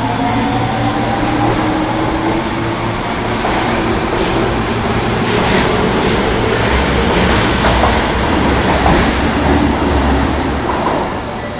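Osaka Municipal Subway 22 series train pulling out of the station. Its traction motors whine and climb in pitch as it accelerates, then the cars run past with a steady rush and rumble of wheels on rail.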